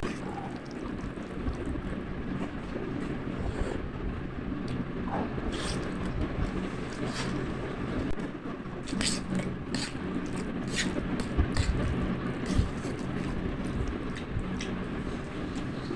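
Spicy instant noodles being eaten: scattered sharp slurping and clicking sounds over a steady low hum.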